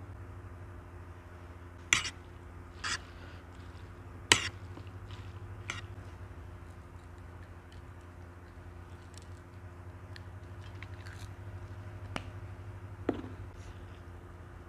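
Hands mixing a wet noodle salad on a plate: a few scattered sharp clicks and squelchy crackles, the loudest about two and four seconds in, over a steady low hum.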